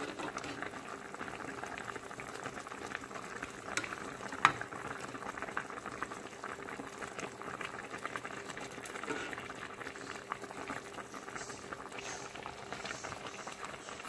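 A pot of sinigang, a fish and vegetable soup, bubbling at a full boil with a steady crackle of small pops. There is one sharp knock about four and a half seconds in.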